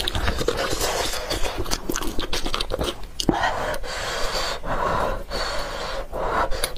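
Knife and spoon clicking and scraping against a roasted marrow bone, close to the microphone, then a run of short breathy sucking sounds, each about half a second long, as marrow is drawn off the bone.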